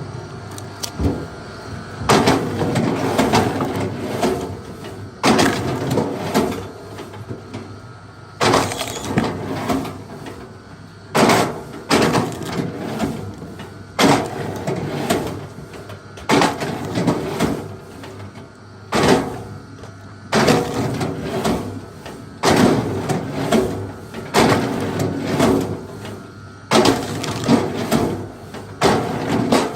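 Axe chopping into a large log: a dozen or so heavy blows, one every two to three seconds, each followed by the crack and crackle of splintering wood.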